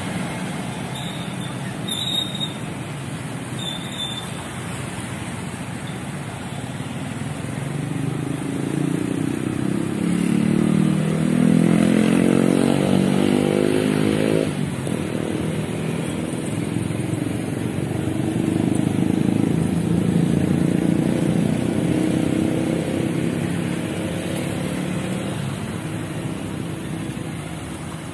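Road traffic passing close: motorcycles and cars going by. About ten seconds in, a small engine grows louder and steps up in pitch as it accelerates past, then cuts off abruptly. A second engine swells and fades a few seconds later. Two short high-pitched beeps sound about two and four seconds in.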